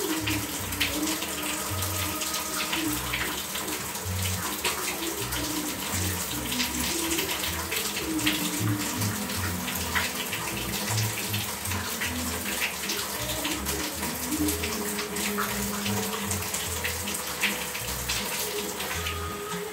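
Tap water running steadily into a bathtub.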